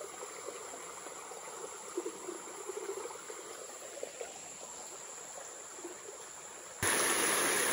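Shallow creek water gently trickling through and over a stacked-rock dam, with a few small splashes. About seven seconds in it cuts to a louder, steady rush of rain-swollen water pouring over the dam, with a high steady insect buzz.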